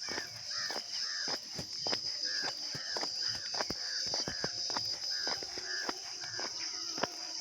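A bird calling over and over in short calls, about two a second, with footsteps on the road and a steady high-pitched hum in the background.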